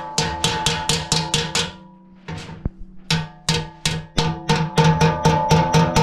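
Hammer tapping rapidly on the rim of a large steel circular sawmill blade to seat an inserted tooth, the blade ringing with each blow. Two quick runs of taps, about six a second, with a short pause about two seconds in.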